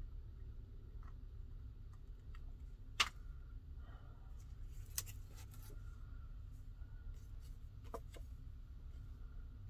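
A few light clicks and taps of small objects being handled, the sharpest about three seconds in, over a steady low hum.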